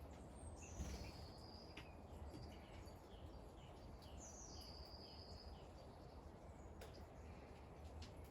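Faint outdoor ambience: birds calling over a low, steady background rumble, with two longer whistled notes (about half a second in and again about four seconds in) and a run of short chirps roughly twice a second in between. Two sharp ticks, about two and seven seconds in.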